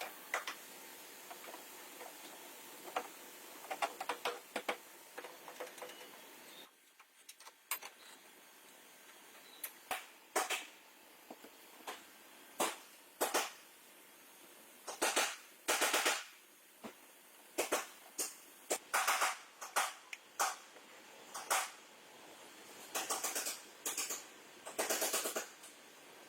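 An irregular series of sharp knocks and clicks, mixed with short hissing bursts a few tenths of a second long, coming thicker in the second half.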